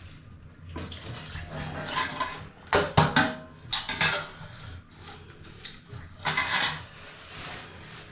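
Dinner plates and utensils clattering and clinking as they are handled for washing up, with the sharpest clinks about three seconds in.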